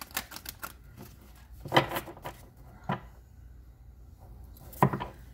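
A deck of tarot cards shuffled and handled by hand over a wooden table: a quick run of card flicks at the start, then a few louder taps and knocks of the deck, the loudest near the end.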